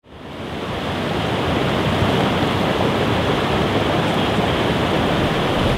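Floodwater rushing and flowing: a steady, dense rush of water that fades in over the first half second and then holds even.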